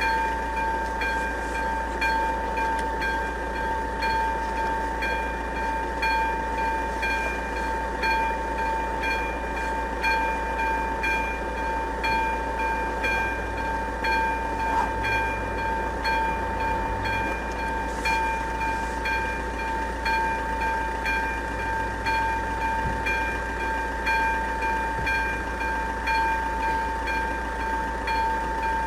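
Second-generation electronic bell of an AŽD71 level-crossing warning signal ringing steadily, about one stroke a second. It signals that the crossing is closed for an approaching train.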